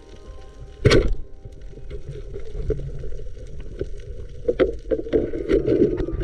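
Water sloshing and splashing, with a sharp loud hit about a second in and scattered knocks after it.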